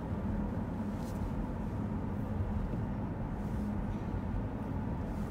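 Steady low road and engine drone inside a moving car's cabin.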